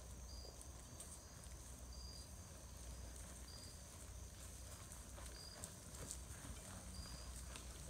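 Faint hoofbeats of horses walking and trotting on grass, with a short high chirp repeating about every second and a half.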